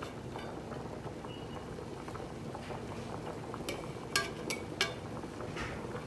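Pot of salted water boiling with potato strips for french fries, a steady bubbling hiss. About four sharp metallic clinks come close together around four seconds in, the loudest the second.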